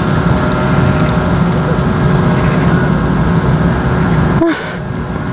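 Steady low rumbling outdoor background noise, with no clear single source. It drops abruptly about four and a half seconds in and then carries on a little quieter.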